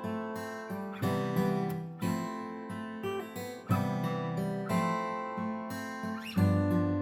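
Background music: acoustic guitar strumming chords, with a new strum about every second.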